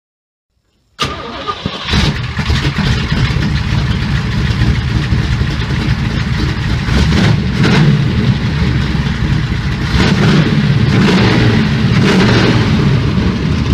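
Dirt-track race car's carbureted engine starting up about a second in and then running, with a few quick revs.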